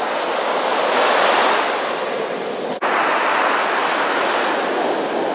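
Ocean surf washing up the beach, a steady rush of waves that swells about a second in. There is a momentary dropout a little before the middle, then the rush carries on.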